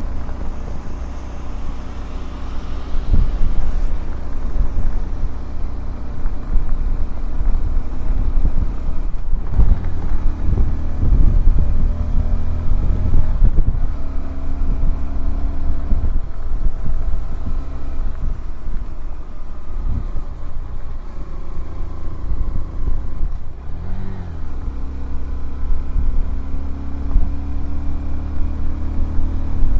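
Honda CBF125R motorcycle's 125cc single-cylinder engine running on the move, its note rising and falling with the throttle, under a heavy rumble of wind on the microphone.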